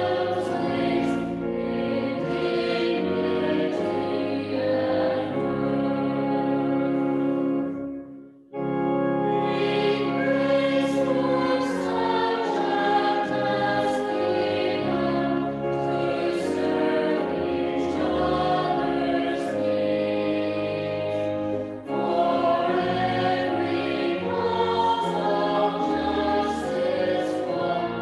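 Choir singing a hymn in several parts, from a music recording. The singing breaks off briefly about eight seconds in, at the change from the first verse to the second.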